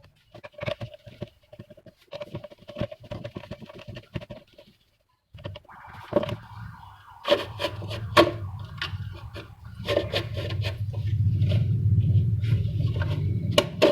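Plastic housing of a TP-Link TL-WA7510N outdoor Wi-Fi unit being opened by hand: irregular clicks, knocks and scraping as the casing is pried and unclipped. A low hum comes in over the last few seconds.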